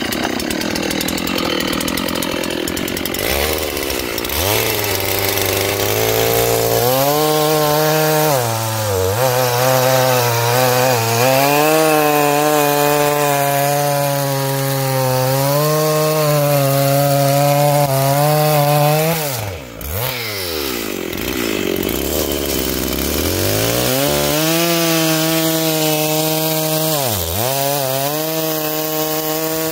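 Two-stroke chainsaw running at full throttle while bucking an oak log. The engine note sags each time the chain bites into the wood and rises again as it frees up. It drops off briefly about twenty seconds in, then cuts again.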